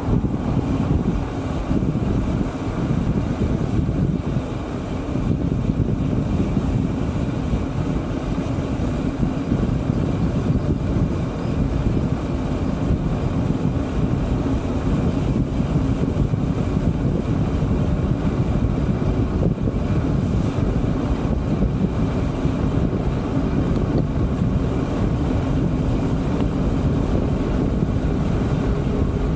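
Steady wind rushing over the microphone of a camera on a moving bike, a continuous deep rumble with no breaks.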